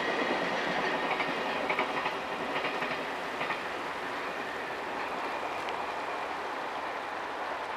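SL Hitoyoshi steam train, hauled by 8620-class locomotive 58654, running past with its wheels clacking over the rail joints. The sound slowly fades as the train moves away.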